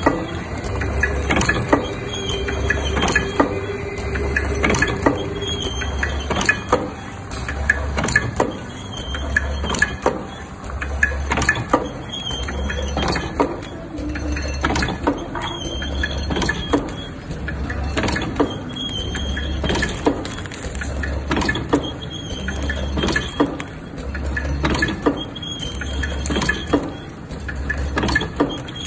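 Automatic tea-bag packing machine running, its cycle making a steady rhythm of sharp clicks over a pulsing hum, with short high squeaks.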